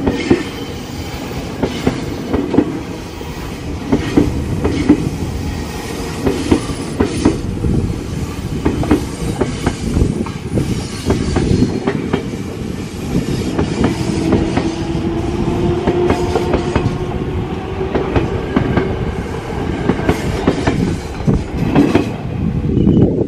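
Ex-Tokyo Metro 6000 series electric commuter train passing at close range: a steady rumble with wheels clacking irregularly over the rail joints. A faint whine rises and holds through the middle of the pass.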